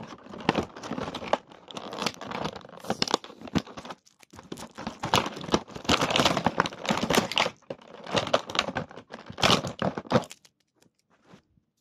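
Plastic packaging crinkling and rustling, with tearing sounds, as the figure's spare heads are unwrapped. It stops about ten seconds in.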